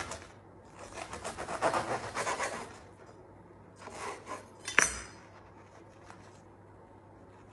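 Knife cutting through the crisp crust of a baked Tuscan schiacciata, a crackling crunch lasting about two seconds, then a shorter crunch. A single sharp knock on the wooden cutting board comes just before the middle, the loudest sound.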